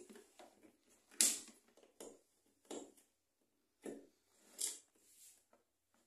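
About five light clicks and knocks spread over several seconds, the first, about a second in, the loudest. This is handling noise as a tester's connector is plugged onto a microwave oven's terminals.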